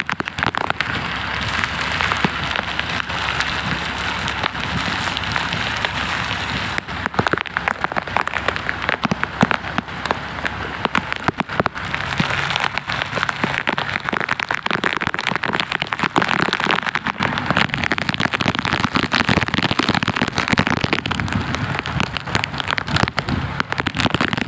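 Heavy rain falling, a dense steady patter thick with sharp individual drop taps.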